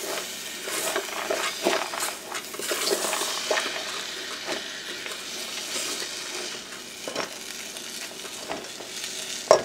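Wooden spatula stirring split peas through a pot of frying onion, pepper and garlic: repeated scraping strokes over a steady sizzle, with a sharp knock at the very end.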